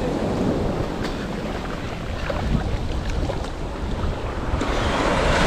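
Wind buffeting the microphone over the rushing noise of sea waves, growing a little louder near the end.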